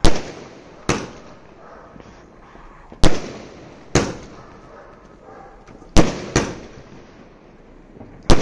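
Multi-shot aerial firework cake ('sky shots') firing shells that burst overhead: about seven sharp bangs, mostly in pairs about a second apart, with the pairs coming every two to three seconds.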